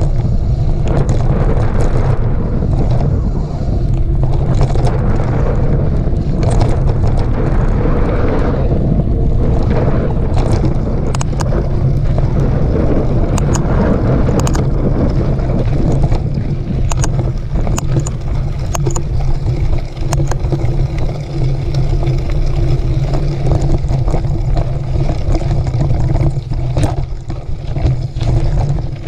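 Mountain bike in motion on a dirt trail: heavy wind rush over the microphone with scattered sharp clicks and rattles from the bike.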